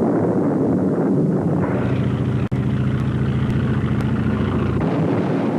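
Propeller-driven aircraft engine droning steadily, with a brief dropout about two and a half seconds in.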